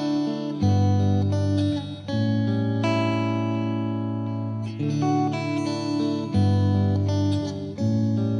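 Background music led by a plucked guitar, with chords that change every second or two.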